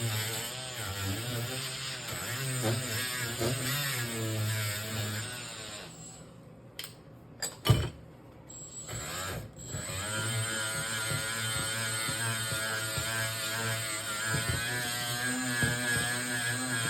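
Handheld power tool running, its pitch wavering under load. It stops for about three seconds midway, with a few clicks and one sharp knock, then runs again steadily.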